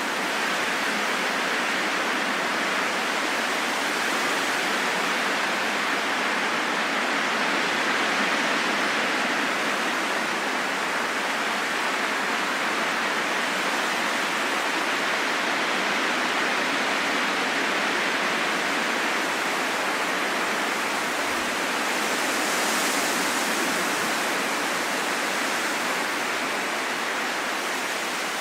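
Steady rushing wind, an even hiss with no gusts, swelling slightly and easing a few times.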